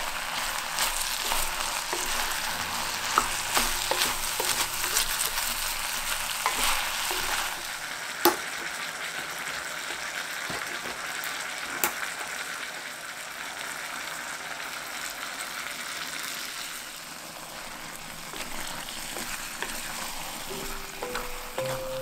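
Onion, shimeji mushrooms and chicken sizzling in hot oil in a cast-iron pot while being stirred with a wooden spatula. The sizzle is loudest for the first seven seconds or so and then softer, with two sharp knocks, one at about eight seconds and one at about twelve.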